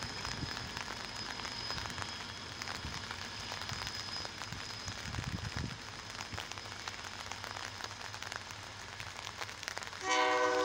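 Rain pattering and crackling with the low rumble of a diesel-hauled passenger train moving away, and a thin high whine over the first few seconds. About ten seconds in, the locomotive's air horn starts to sound, loud and chord-like.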